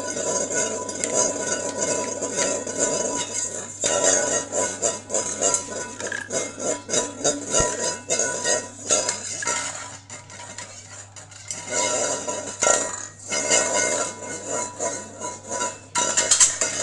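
Pressure cooker venting steam under pressure: a continuous hiss with a rapid metallic rattle from its valve.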